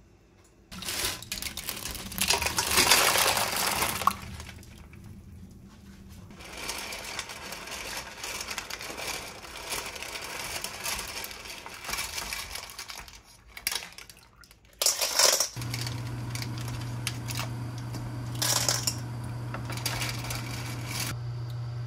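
Shellfish in their shells are dropped into a stainless steel pot of water and stirred with a ladle, the shells clattering against the pot and each other. About fifteen seconds in, a steady low hum starts and runs on under the stirring.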